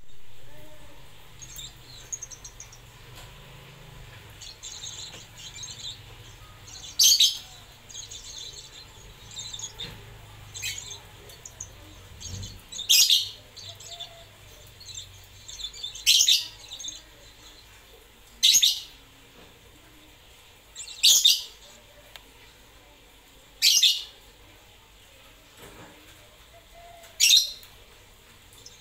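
Caged lovebird giving loud, high-pitched calls, seven in all, roughly every three seconds from about seven seconds in, with softer twittering in the first ten seconds.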